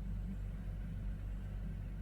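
A steady low hum at an even level, with no rise and fall of breaths or snores.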